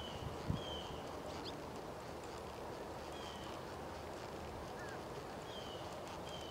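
Red roan Quarter Horse mare jogging on arena sand: soft, muffled hoofbeats over a steady outdoor hiss, with one heavier thud about half a second in. Short high chirps come several times.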